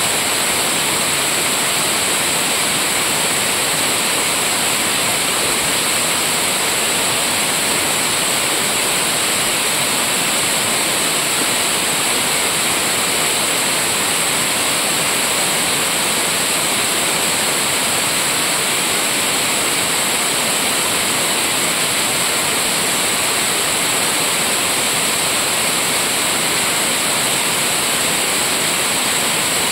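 Water falling over a rain-swollen river cascade, a steady, unbroken rush.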